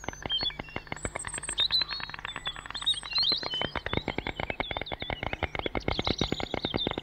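White storks clattering their bills: a rapid, unbroken rattle of clicks, with small birds chirping high above it.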